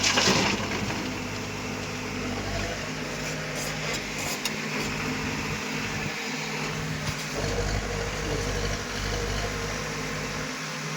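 Heavy earth-moving machine's engine running steadily, with a brief loud noise right at the start.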